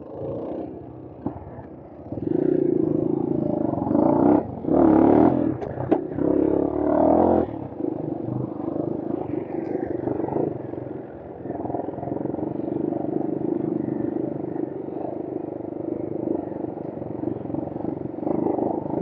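Brozz 250 motorcycle engine running on a trail ride. It pulls harder and louder from about two seconds in until about seven seconds in, with a few quick throttle blips, then settles to a steady cruise.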